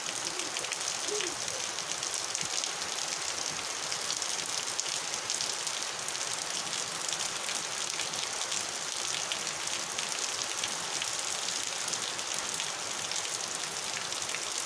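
Fairly heavy rain falling steadily: a dense, even hiss with a fine patter of drops.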